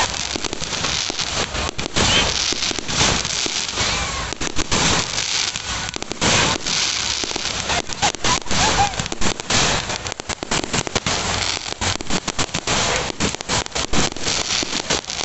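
Aerial fireworks going off in a rapid, unbroken series of bangs and crackling pops from shells bursting overhead.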